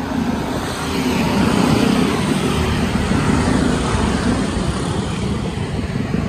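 Steady road noise: traffic on the bridge mixed with wind rushing past a moving bicycle, a little louder from about a second in.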